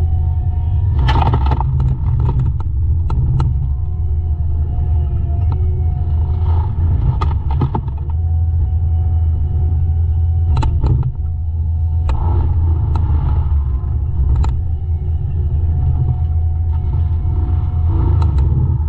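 Heavy equipment diesel engine running steadily under load, with a faint wavering hydraulic whine and a series of sharp cracks and knocks, the loudest a little after a second in and around ten seconds in.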